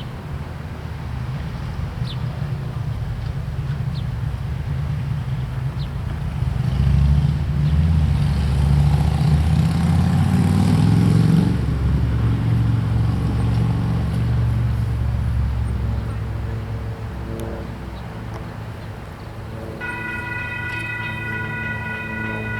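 A low rumble of passing road traffic swells and fades over several seconds. About 20 seconds in, an Amtrak locomotive's air horn starts sounding a steady chord.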